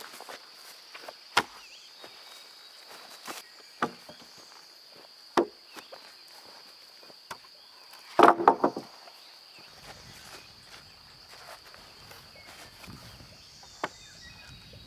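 Steady high-pitched insect chorus, broken by a few sharp knocks, the loudest a quick cluster of knocks about eight seconds in.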